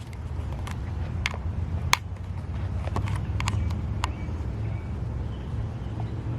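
Footsteps on rough ground, heard as irregular sharp crunches and clicks, most of them in the first four seconds, over a steady low rumble.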